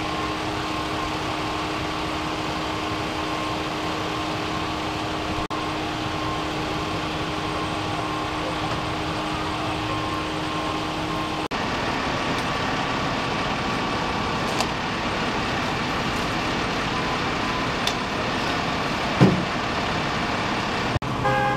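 Fire engines' diesel engines idling steadily, with a held low hum. A single short knock about 19 seconds in.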